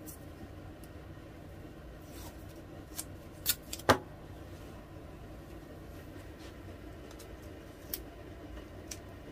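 Hands handling tape and a thermocouple probe on a metal hot plate: a quick cluster of sharp clicks and crinkles about three to four seconds in, then two lighter clicks near the end, over a steady low hum.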